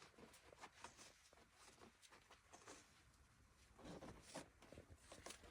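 Near silence: faint, scattered soft clicks and light rustling, a little louder about four seconds in.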